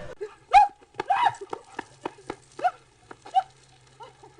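An animal making a series of short, arching calls in irregular succession, with sharp clicks or knocks between them.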